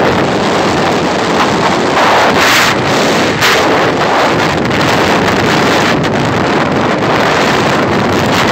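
Loud, steady wind rushing over the microphone of a moving motorcycle, with the bike's road and engine noise mixed in.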